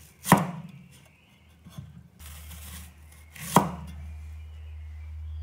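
Kitchen knife cutting through a snow pear and knocking down onto the cutting board, two sharp knocks about three seconds apart with a brief slicing rasp before the second. A low steady hum comes in about two seconds in.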